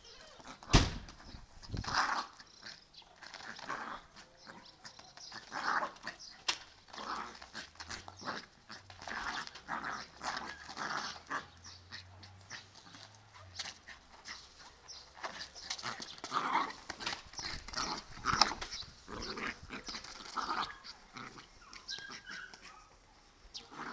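Small dog making short, repeated barks and whimpers as it plays with a ball, with a sharp knock about a second in.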